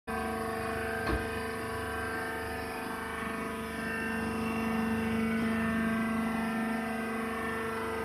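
Hydraulic press baler running with a steady, even hum, a little louder in the middle. A single sharp knock about a second in.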